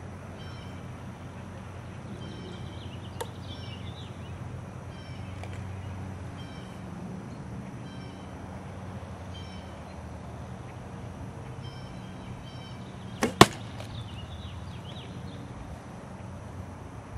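An arrow striking a linothorax, a laminated flax-linen, glue and leather cuirass, hung as a target: two sharp knocks close together about 13 seconds in, by far the loudest sound.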